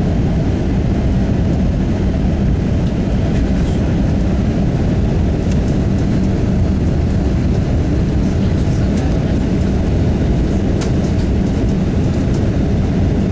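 Steady cabin noise inside an Airbus A320 on its landing approach: the even, deep rumble of engines and airflow, unchanging throughout.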